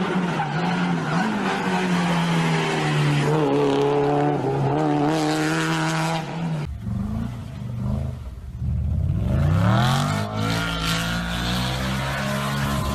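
Rally car engine revving hard and changing pitch as the car is driven fast on a loose surface. About two-thirds of the way in, the sound cuts to a deeper engine that revs up from low with a rising pitch.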